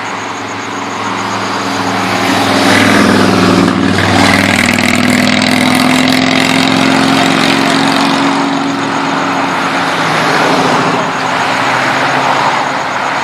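A motor vehicle's engine running close by and loud, its pitch dipping about four seconds in and then holding steady.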